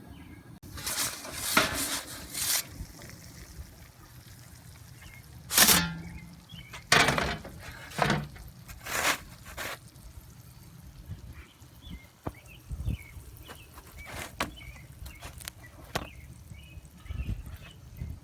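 Wind buffeting the microphone outdoors: a steady low rumble with several loud gusts in the first half, then scattered light knocks and clicks.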